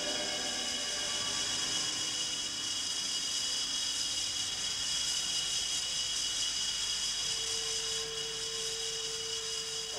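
A steady hiss with faint high whistling tones in it, fading out just after.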